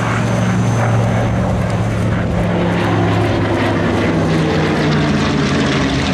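A Hawker Hurricane and a Mitsubishi A6M Zero flying a pass together: the steady, loud drone of their piston engines and propellers. The Hurricane is powered by a Merlin V-12.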